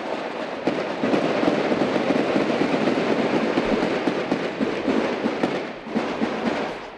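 Long bursts of rapid gunfire, the shots running together into a continuous crackle, with a brief lull near the end.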